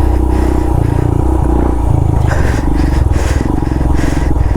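Motorcycle engine pulling uphill on a dirt trail, its pitch stepping up and down as the throttle changes, with scattered clatter and scraping from the rough ground.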